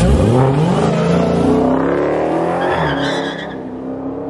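Dodge Challenger Hellcat's supercharged 6.2-litre V8 revved hard, starting suddenly and climbing in pitch for about two and a half seconds before falling back.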